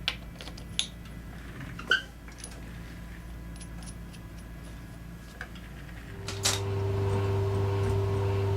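A few light metallic clinks of small parts being handled. About six seconds in, an electric machine starts up and runs with a steady hum.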